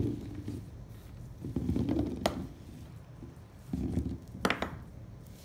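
Jujube fruits tumbling out of a cloth bag and rolling and knocking against each other on a hard tabletop, in three bursts with a sharp click at the end of the second and third.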